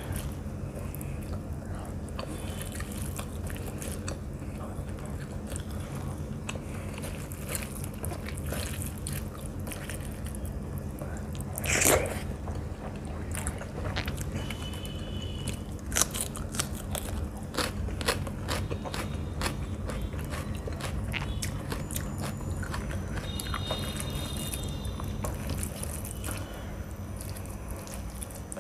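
Close-miked chewing and mouth sounds of a person eating rice and chicken curry by hand, with the sounds of fingers mixing rice into the curry. There are many small clicks throughout and one louder mouth sound about twelve seconds in, over a steady low hum.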